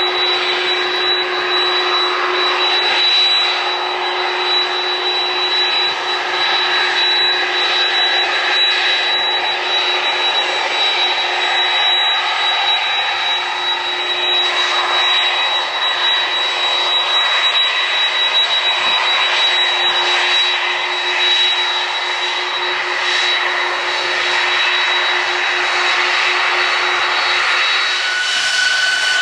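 Jet airliner engines running with a steady, multi-pitched whine over a rushing noise; near the end the whine climbs in pitch as the engines spool up for a departure.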